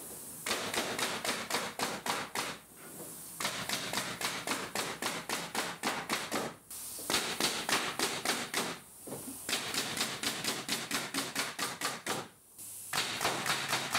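Tacwise KDH90V pneumatic angled framing nailer driving nails into timber boards in rapid succession: runs of sharp shots, several a second, broken by short pauses as the gun moves along the board.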